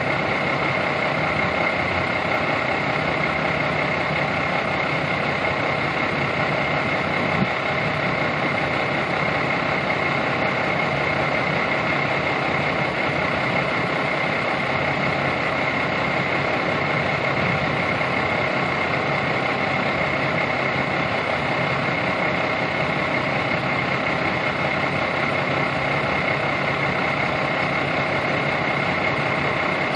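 Steady drone of a nearby idling vehicle engine, unchanging throughout, with a steady high-pitched tone over it.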